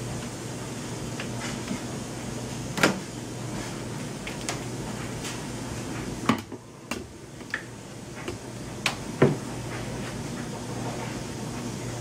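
Glass-fronted wooden reptile enclosure door being unlatched and swung open: several sharp clicks and knocks, the loudest about 3 and 9 seconds in, over a steady low hum.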